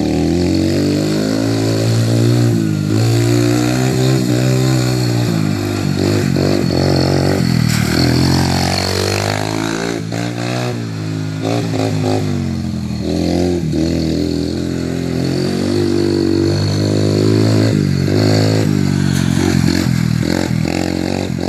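Honda TRX90EX youth ATV's small single-cylinder four-stroke engine running, its pitch rising and falling again and again as the throttle is opened and closed.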